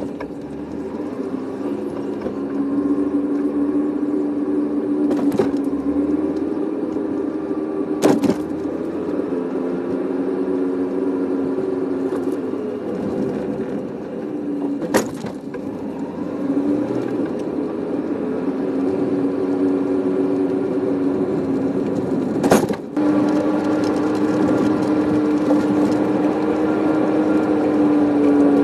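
Several sharp hammer blows, a few seconds apart, on a scrapped car's rear brake drum and hub, which is being knocked off. A steady low hum runs under them.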